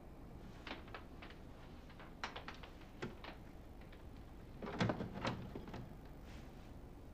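A series of small clicks and knocks of objects being handled, with a louder clatter of knocks about five seconds in.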